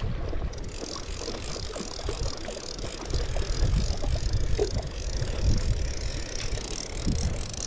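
Fly reel's click ratchet running steadily as line is reeled in on a hooked whitefish, starting about half a second in. Wind rumbles on the microphone underneath.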